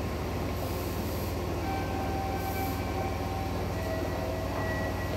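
Meitetsu 300 series electric train standing at an underground platform, its equipment giving a steady low hum. A few faint high tones come in about two seconds in.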